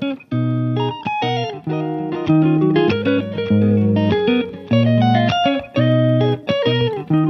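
Instrumental background music: a plucked melody over low bass notes, in short phrases with brief gaps between them.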